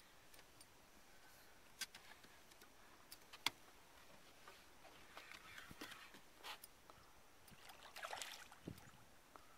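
Near silence with a few faint clicks and knocks and some soft rustling; one sharp click about three and a half seconds in is the loudest.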